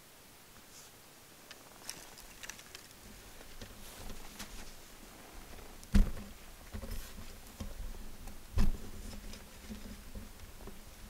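Rustling and scattered light clicks of movement close to the microphone, with two heavy, deep thumps about six and eight and a half seconds in.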